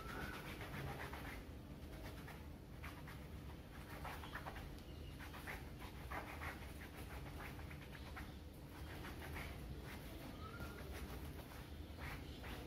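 A towel being rubbed vigorously back and forth over a cricket pad to dry it, a quick, even run of rubbing strokes.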